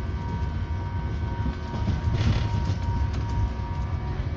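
Stadler Citylink Class 399 tram-train running along mainline track, heard from the driver's cab: a steady low rumble of wheels on rail with a thin, steady electric whine above it. A louder rushing swell comes about two seconds in.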